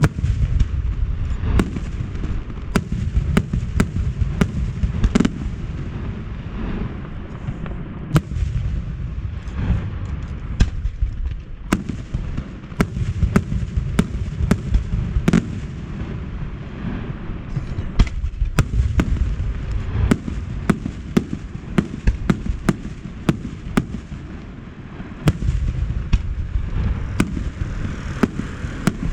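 Aerial fireworks display going off continuously: a dense run of sharp cracks and bangs over a steady low rumble of shell bursts, with a heavier flurry of reports about a second in and another near the end.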